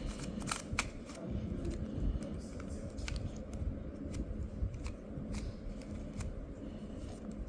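Moyu RS magnetic skewb puzzle being twisted by hand: irregular sharp plastic clicks as its corners turn and snap into place.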